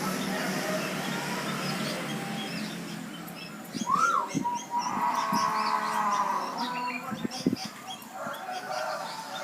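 Zebra doves (perkutut) cooing among many short, high bird chirps, with a rising-and-falling call about four seconds in.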